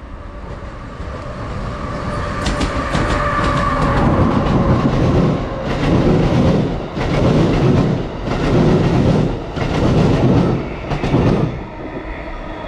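A train passing on the rails, getting louder as it nears, with sharp clicks of wheels over rail joints. Then a run of rhythmic swells about every second and a half as the cars go by, dropping off near the end as the train clears.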